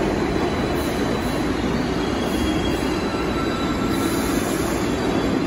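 New York City Subway R62A train slowing to a stop alongside the platform: a steady heavy rumble of wheels and running gear, with faint high squeals in the second half.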